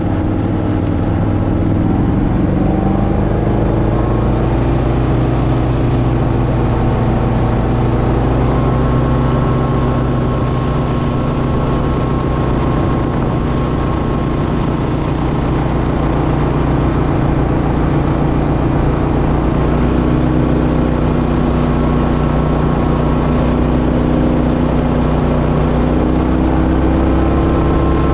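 Boat motor running steadily under way, loud and close, its note shifting slightly a couple of times.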